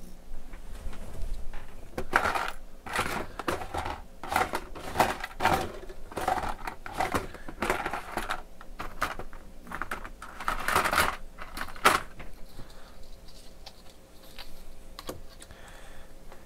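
Small tools and parts being handled and rummaged through by hand: irregular clicking, clattering and rustling, busiest for the first twelve seconds, then sparser with a single click near the end.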